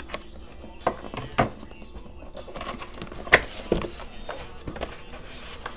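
Scissors snipping the tape seal on a cardboard trading-card hobby box, then the box being opened: a series of sharp clicks and snaps about a second apart with some rustling, the loudest snap a little past three seconds in.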